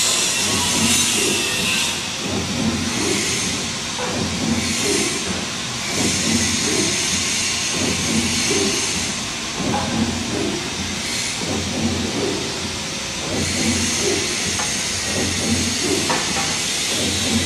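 Paper sheeting machine running: a steady mechanical din with a constant hiss, as paper webs feed over its rollers.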